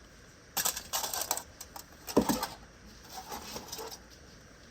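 Light clicking and rustling of handling noise in short spells: about half a second in, again around two seconds in, and more faintly near three and a half seconds.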